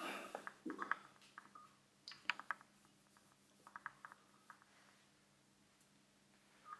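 Faint, short clicks of a smartphone's touchscreen keypad being tapped, coming irregularly in small clusters, over a faint steady hum.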